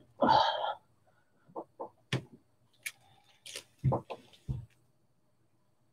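Short knocks, clicks and thumps of a person moving about and handling things, about eight in all, with two heavier low thumps near the end; then all sound cuts off abruptly.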